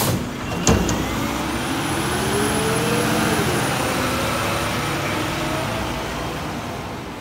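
Mack LR diesel garbage truck pulling away from a stop. A short sharp air-brake release at the start and a clunk just after are followed by the engine revving up as it accelerates. Its pitch drops at a gear change about three seconds in, then climbs again and fades as the truck drives off.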